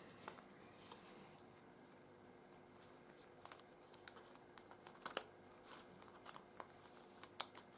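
Faint crinkle and rustle of a clear plastic card sleeve and trading cards being handled, with scattered small clicks; the sharpest come about five seconds in and near the end.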